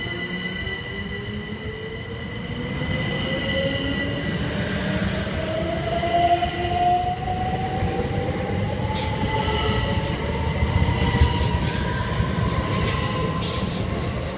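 c2c Class 357 Electrostar electric multiple unit pulling out and accelerating: its traction whine rises steadily in pitch over a low rumble, with a steady high tone and a run of clicks from the wheels over the rails in the second half.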